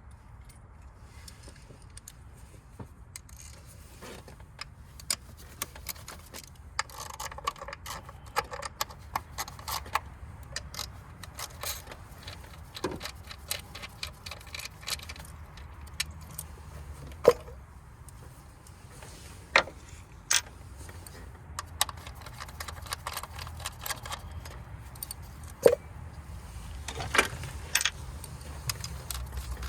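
Hand tools and metal parts clicking and clinking in scattered bursts as ignition coils and spark plugs are removed from an engine, over a steady low hum.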